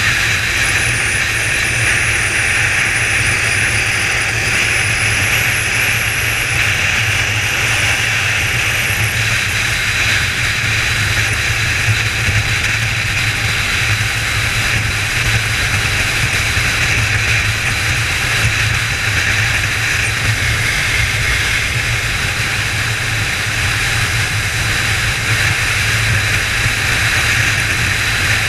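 Kawasaki ZZR1400's inline-four engine running at steady cruising speed, mixed with constant wind rush over the camera on the moving motorcycle; the engine note stays even with no revving or gear changes.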